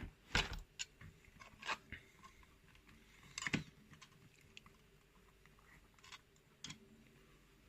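Scattered light clicks and taps as a pinning tray is set out and small lock pins and parts are handled, a few sharp knocks among quieter ticks.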